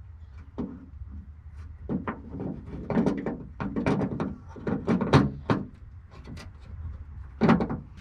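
Replacement outer door handle being fitted into a Subaru Brumby car door by hand: a run of knocks, clicks and rattles, densest from about two to five and a half seconds in, with one more loud knock near the end.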